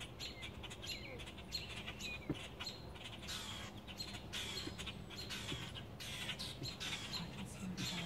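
Small birds chirping and twittering in quick, high, short calls that keep up throughout.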